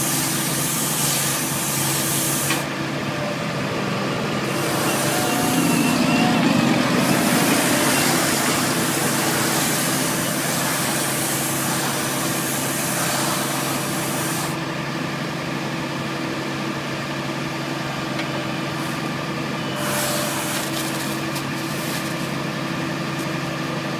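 Tractor engine running steadily, powering a Metal-Fach Z560 stationary bale wrapper as it turns a round bale in stretch film, with several long stretches of hissing.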